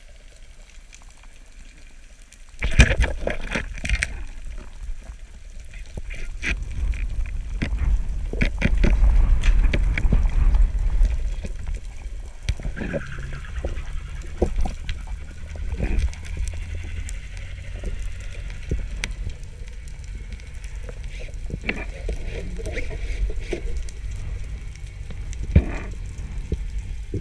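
Underwater recording of a speared goliath grouper's struggle on a polespear: quiet at first, then from about three seconds in, low rumbling water turbulence with scattered sharp knocks and bumps that continue throughout.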